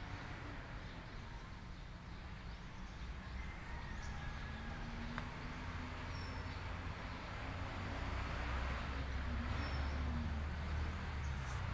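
Outdoor background: a low rumble that grows louder about eight seconds in, with a few faint, high, short bird chirps.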